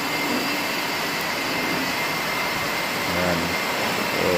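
Steady machine hiss with a few high, steady whines from a CNC machining centre running as it drills aluminium profiles behind its glass enclosure.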